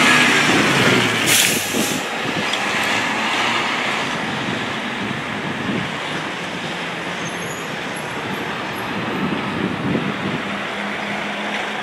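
Fire engine driving past in street traffic with no siren. Its engine and tyre noise are loudest at the start and ease off, and there is a short hiss about a second and a half in.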